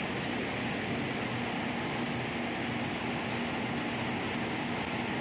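LogRipper-300 scragg mill running steadily, a constant mechanical rumble and hum with a faint steady tone partway through.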